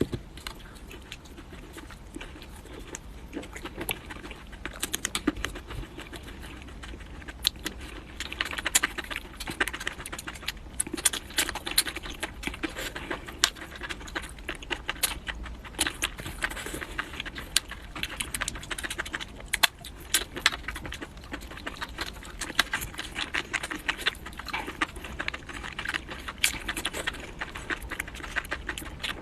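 Close-miked eating sounds: a dense, irregular run of crunches, clicks and crackles of food being chewed and handled.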